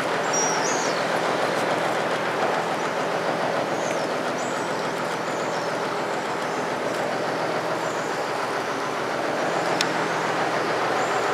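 Steady rushing noise of wind and choppy sea water, under a low even hum of a boat engine running.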